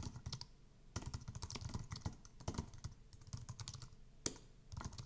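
Typing on a computer keyboard: quick runs of key clicks with short pauses, and one louder keystroke near the end.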